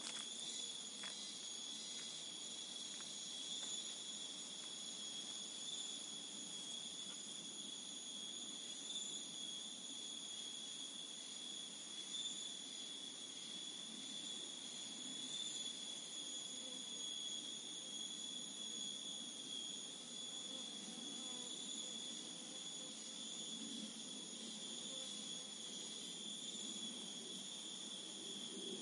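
Continuous high-pitched drone of an insect chorus, holding one steady pitch.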